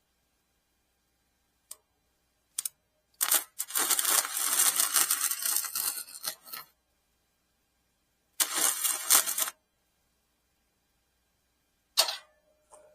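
Welding arc crackling in two bursts, one of about three seconds and a shorter one of about a second, laying welds on a small steel piece. Sharp metal clicks come before them, and near the end a small steel part clinks with a brief ring.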